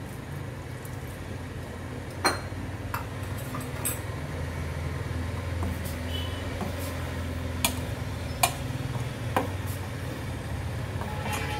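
Steel spoon stirring curry in a stainless steel pot, knocking against the pot with about half a dozen sharp clinks, over a steady low hum.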